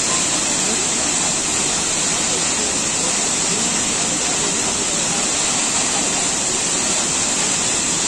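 Waterfall, its falling water making a steady, even rush that neither builds nor breaks.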